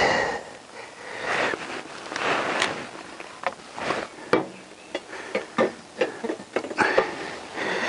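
Scattered knocks and clinks of steel exhaust downpipes being pushed and handled against the engine sump, between short rustling noises, as the four-into-one exhaust's middle section is tried for fit.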